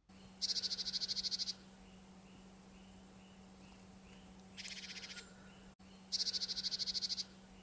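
Small bird giving three rapid trills of about a second each, the middle one fainter, with faint short chirps repeating about twice a second and a steady low hum underneath.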